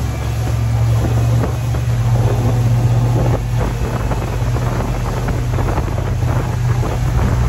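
Speedboat engine running steadily at speed, a low drone, with wind buffeting the microphone.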